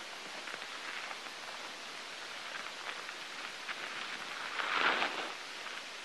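Steady hiss with faint scattered crackling ticks, and a brief louder rustle about five seconds in.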